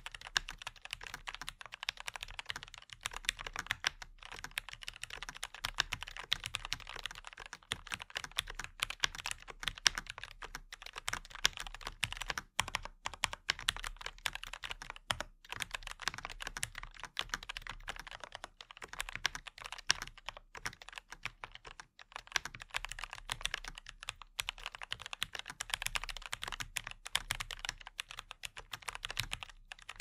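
Fast, continuous typing on the AZIO Retro Classic Prestige full-size mechanical keyboard. Its factory-lubed Gateron G Pro 3.0 Brown tactile switches are dampened by the stock foam and silicone. The keystrokes come in quick, dense runs with a few short pauses.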